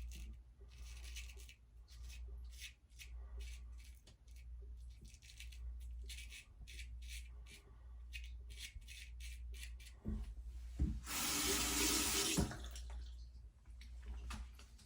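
Weck Sexto razor scraping through lathered stubble in quick short strokes, several a second. About eleven seconds in, a faucet runs for a second or two.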